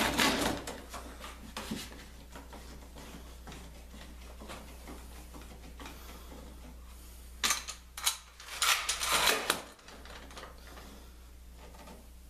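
Short bursts of clattering and scraping from objects being handled and set down, one at the start and a cluster of them about eight seconds in, over a low steady hum.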